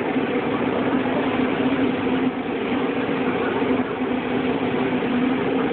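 A steady machine hum over an even hiss, holding one pitch without change.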